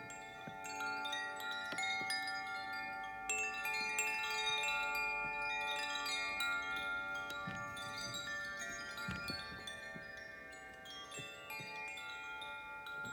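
Hand-held cylindrical wind chime swung gently, its rods struck at irregular moments so that many clear, overlapping tones ring on and shimmer together.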